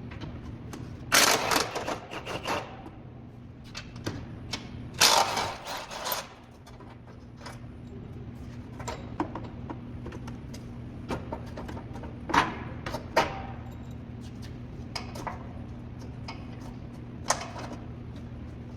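A wrench working loose the bolts of a truck's front crash bar: two bursts of rapid rattling about a second and a half long near the start, then scattered clicks and knocks of tools on metal over a steady low hum.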